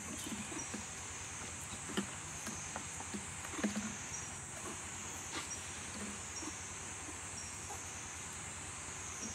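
Steady high-pitched drone of forest insects, with scattered faint clicks and a few short low sounds.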